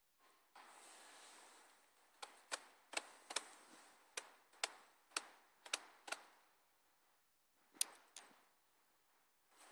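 Footsteps on rock: a row of sharp, light clicks at a walking pace, about two a second, then two more near the end after a pause.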